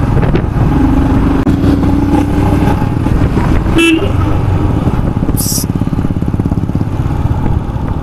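Motorcycle engine running steadily under riding load, with horns honking: a held honk about a second in and a short toot near four seconds.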